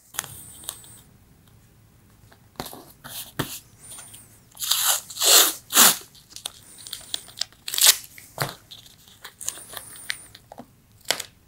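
Masking tape being pulled off its roll in a series of short, uneven rips and torn into strips, with a few longer, louder pulls around the middle.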